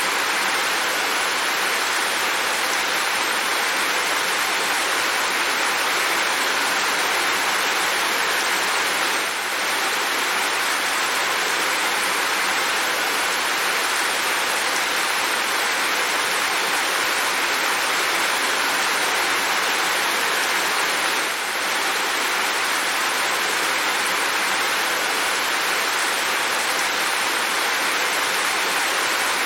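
Steady, heavy rain falling as an even hiss, with the level dipping briefly twice.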